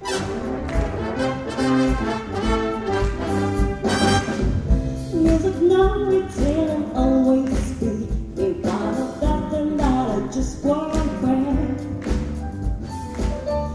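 Live jazz big band of saxophones, trombones, trumpets and drum kit playing, coming in together right at the start. About five seconds in, a woman's singing voice joins over the band.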